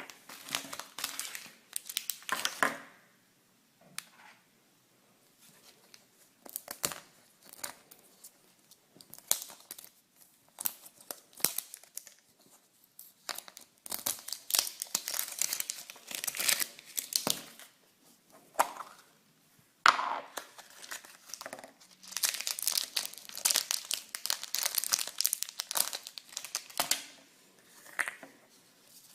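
Wrapping being crinkled and torn open by hand in irregular bursts with short pauses, as surprise eggs and toys are unwrapped.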